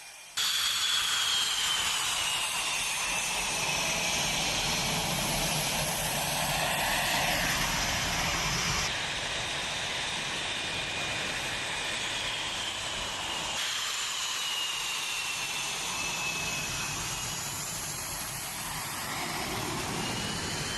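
Fighter jet engines of Spanish EF-18 Hornets running with a high whine that slowly rises and falls in pitch. The sound changes abruptly twice, at cuts between shots.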